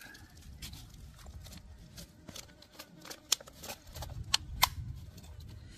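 Irregular sharp clicks and taps, a few of them much louder than the rest about three and four and a half seconds in, over a low rumble.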